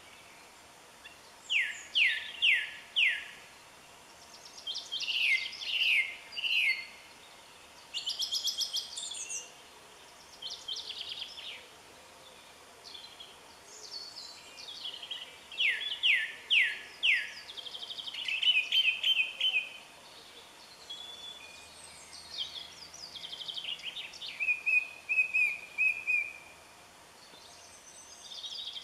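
Songbirds singing: repeated short phrases of quick falling whistled notes and trills, a new phrase every few seconds with pauses between.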